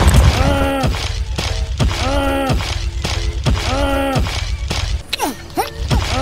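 A man's voice groaning again and again with strain, about once a second, over a steady low rumble, with a short crash right at the start.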